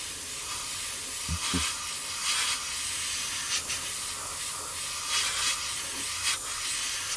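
Airbrush spraying grey lacquer primer: a steady hiss of air and paint with brief louder puffs now and then.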